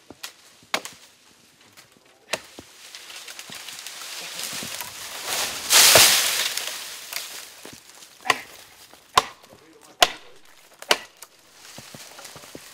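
Small hand axe chopping into an oak branch, a few sharp strikes. The cut branch then falls with a swelling rush of leaves and crashes to the ground about six seconds in, followed by four more axe strikes.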